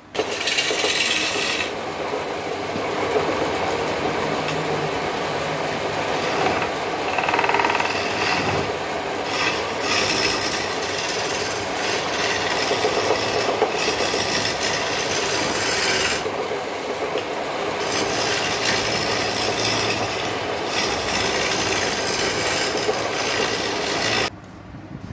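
Wood lathe spinning a wooden spindle while a hand-held chisel cuts into it, a continuous rasping scrape of steel on turning wood. The scrape lightens and comes back a few times and stops abruptly near the end.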